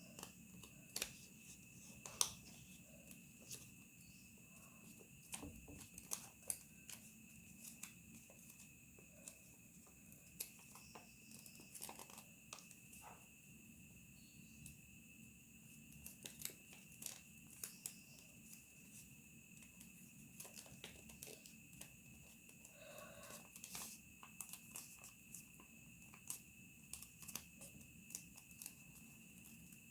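Origami paper being handled and folded: scattered soft crinkles, taps and crackles of creasing paper, the loudest pair about two seconds in. A faint steady high-pitched tone runs underneath.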